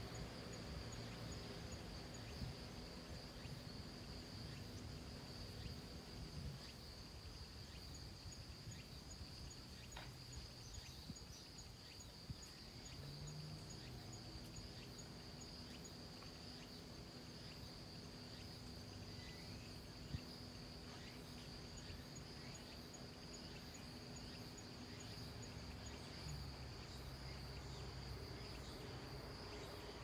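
Faint insect chorus: a steady high-pitched drone, with a second insect ticking rapidly above it. A low rumble runs underneath, and there are a few soft clicks.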